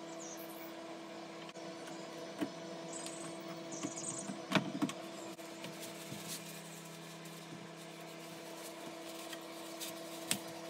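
Small bar clamps being fitted and tightened on a pine box: a few sharp clicks and knocks of clamp on wood, the loudest about halfway through. A steady hum runs underneath.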